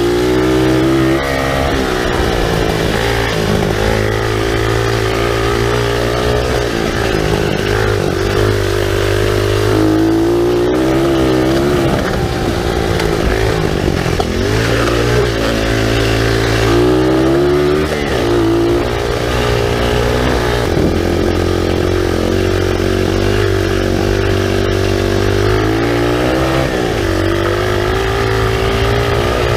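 SSR 125cc pit bike's single-cylinder four-stroke engine running hard under way. The revs climb and drop again and again as the throttle is worked.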